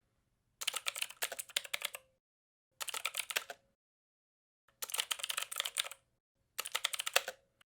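Fast typing on a computer keyboard: four short bursts of rapid key clicks separated by dead silence.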